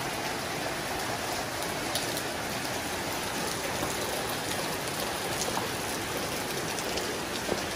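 Steady rain falling on wet pavement, an even hiss with scattered faint drop ticks.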